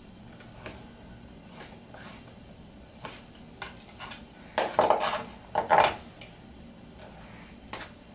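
Chef's knife slicing pork loin into thin strips on a plastic cutting board, the blade tapping the board with each cut. Two louder clatters come about halfway through.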